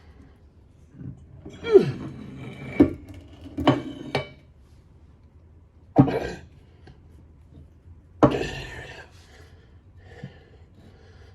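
A heavy metal drill press part being handled and set down: a series of clanks and knocks, about five in all, with scraping between them and a ringing clank about eight seconds in.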